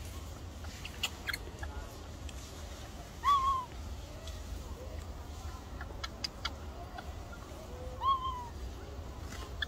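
Two short, clear coo calls from a macaque, each a single note that rises briefly and then falls away, about five seconds apart. Faint scattered clicks run between them.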